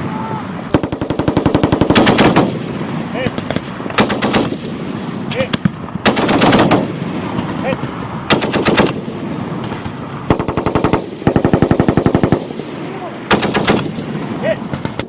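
Belt-fed machine guns firing in repeated bursts: about seven bursts of rapid, evenly spaced shots, the longest nearly two seconds and the shortest a fraction of a second, each echoing across the range.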